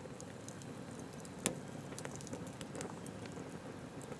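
Wood campfire crackling, with scattered small snaps and one sharper pop about a second and a half in.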